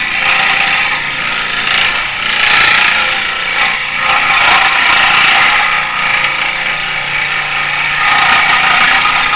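Skil benchtop scroll saw running, its reciprocating blade cutting curves through a wooden board: a steady motor buzz with the cutting noise swelling and easing several times as the wood is fed.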